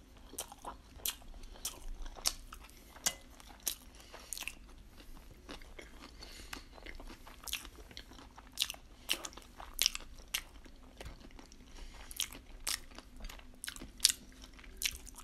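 Close-miked chewing of sushi and sashimi: irregular moist mouth clicks and crisp crunches, several a second, with one sharper click near the end.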